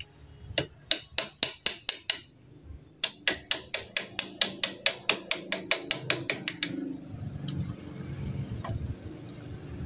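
Quick runs of metallic clicking, about six clicks a second, as an L-shaped socket wrench is worked on a scooter's front axle slider to tighten it. There is a short run, a pause of about a second, then a longer run of nearly four seconds, followed by a few faint ticks.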